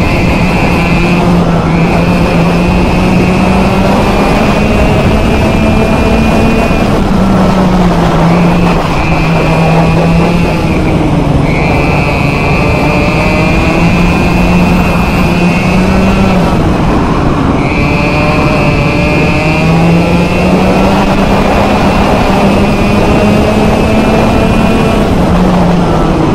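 Vortex ROK two-stroke kart engine at race pace, its revs climbing steadily along each straight and dropping sharply into the corners, several times over.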